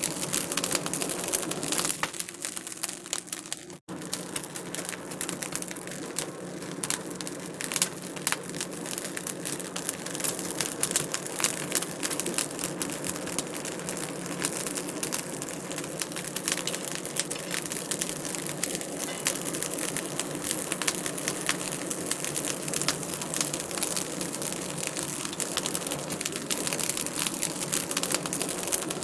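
Wood fire crackling in a fireplace: a constant hiss full of quick snaps and pops. The sound cuts out for an instant a little under four seconds in.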